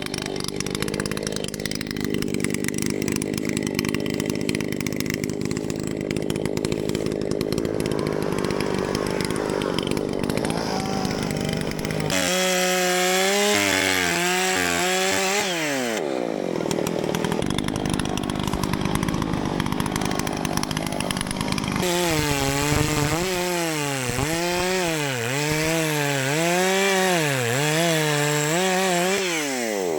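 Chainsaws cutting through downed tree wood, running steadily for the first stretch, then the engine pitch rising and falling again and again as the chain bites into the log and eases off.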